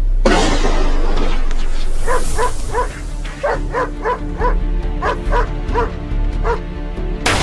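Hunting dogs barking in a quick run of short, evenly spaced barks over background music, with a sharp bang just after the start and another near the end.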